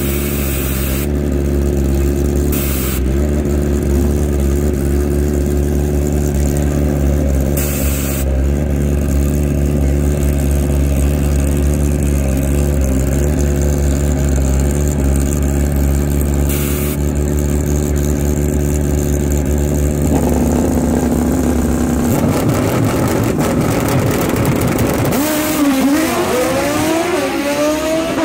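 Drag-racing motorcycle engines running at a steady idle, then from about twenty seconds in revving, the pitch rising and falling.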